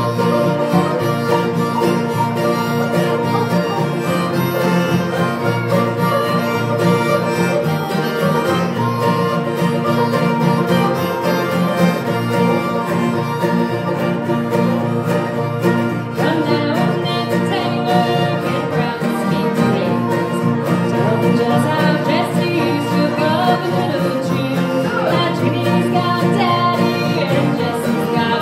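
Live bluegrass band playing: strummed acoustic guitars, mandolin and banjo.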